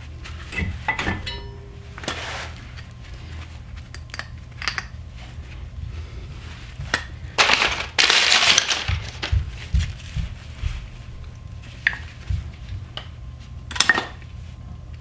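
Metal brake parts and hand tools clinking and clattering during a front brake pad change, with scattered sharp clinks and a louder stretch of noise lasting about a second and a half around the middle.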